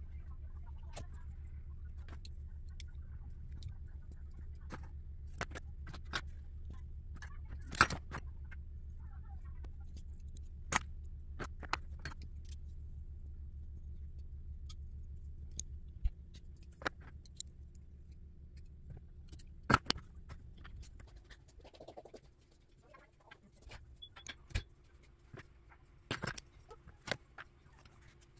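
Small metal screws and RC car chassis parts clicking and clinking as they are handled and fitted by hand. A steady low hum sits under the clicks and stops about three-quarters of the way through.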